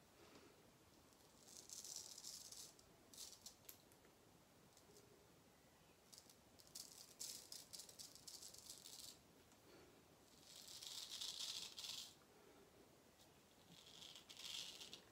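Cartridge razor scraping through lathered stubble on the chin and neck: several bouts of short raspy strokes a few seconds apart, the longest and loudest a little past the middle.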